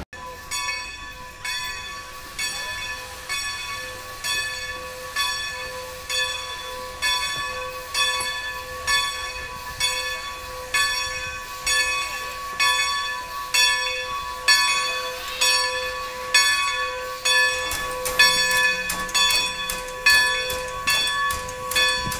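Steam locomotive's bell ringing steadily as the engine pulls into the station, about one and a half strokes a second, each stroke ringing on into the next. The bell belongs to Strasburg Rail Road's 1924 Baldwin locomotive No. 90.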